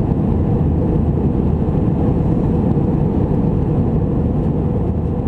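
Steady engine and airflow noise heard inside the cabin of an Airbus A319 airliner in flight, low and even throughout.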